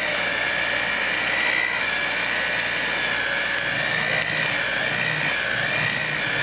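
Electric hand mixer running at speed, its beaters churning cream cheese and butter in a bowl. The motor gives a steady high whine that wavers slightly in pitch.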